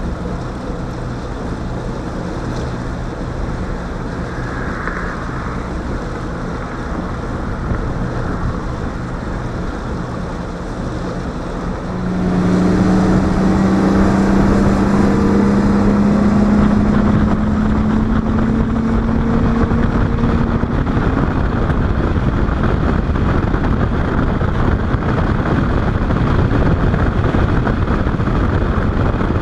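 Bass boat's outboard motor running under way, with wind on the microphone. About twelve seconds in the motor throttles up and grows louder, its tone rising slowly for several seconds as the boat speeds up, then it holds a steady run with wind and water noise.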